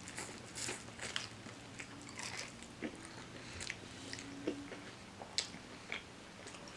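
Close-up eating sounds of fried chicken: a bite into the crispy coating, then chewing, with scattered sharp crunches and crackles.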